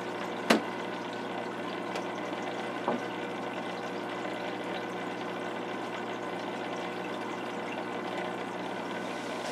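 Aquarium filter running steadily, a constant water hiss with a low hum, broken by a sharp click about half a second in and a fainter knock near three seconds.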